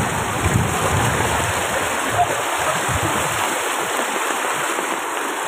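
Muddy rainwater runoff rushing steadily over the ground in the rain.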